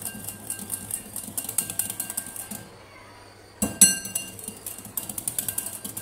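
Wire whisk beating thick curd in a glass bowl: fast, rapid clicking of the wires against the glass. It stops for about a second, then comes a single sharp clink with a short ring, and the fast whisking starts again near the end.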